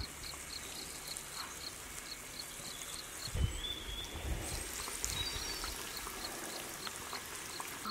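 Eggplant patties sizzling in hot oil, with an insect chirping steadily about four times a second and a few short bird calls near the middle. A soft knock comes about three and a half seconds in.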